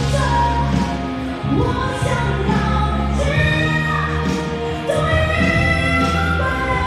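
A woman singing a Mandarin pop song into a microphone with long held notes, over live band accompaniment.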